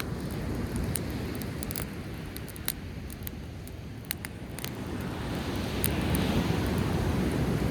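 Driftwood campfire crackling with scattered sharp pops, over a low rumble of breaking waves that swells louder about two thirds of the way through.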